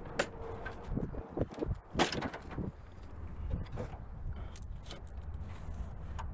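Knocks and clicks from handling a Jeep Wagoneer's opened-up tailgate, the loudest a sharp knock about two seconds in, over a low steady rumble.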